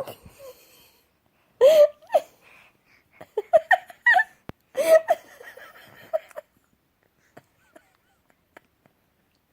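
A baby laughing and giggling in short high-pitched bouts, three main bursts in the first five seconds or so, then dying away to a few faint clicks.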